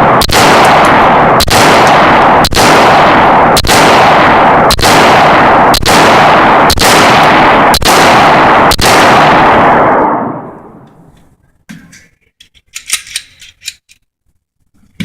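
Smith & Wesson SD9 VE 9mm pistol firing a string of nine shots, about one a second, with loud echo filling the gaps between them. The firing stops about 9 seconds in and the echo dies away, leaving only faint clicks and clinks near the end.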